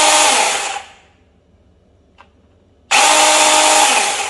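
OSUKA OCMC-6S1 20 V cordless mini chainsaw run with no load in two short bursts, the motor and chain whining at full speed. The first burst winds down with falling pitch about a second in, and the saw starts again about three seconds in.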